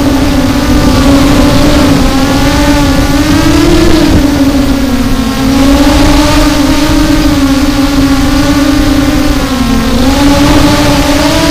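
Brushless motors and propellers of an FPV quadcopter, recorded by the action camera on board: a steady whine whose pitch rises and falls with the throttle, dipping about five seconds in and again near the end, over a rough rushing noise.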